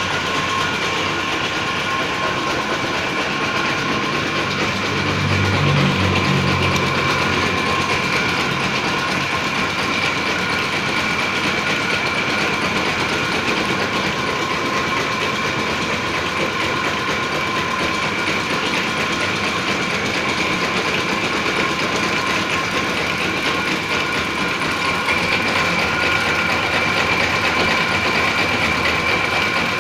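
Round-tofu rolling machine, driven by two large electric motors, running steadily with a constant high whine over a busy mechanical clatter. A brief low hum swells about five to seven seconds in.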